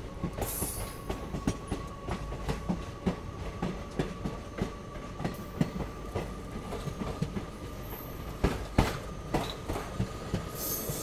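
Passenger train's wheels clicking over the rail joints, roughly two clicks a second, with a steady high whine over them, heard through the coach's open doorway.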